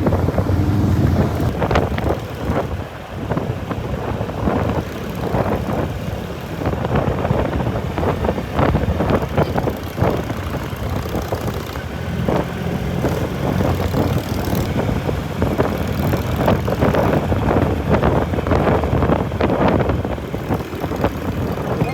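Motorcycle engine running under way, with wind buffeting the microphone; the engine note rises and falls a little.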